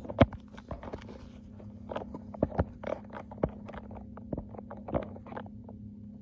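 Irregular clicks and knocks of a phone being handled and adjusted on a small tripod, the loudest about a quarter second in, over a steady low hum.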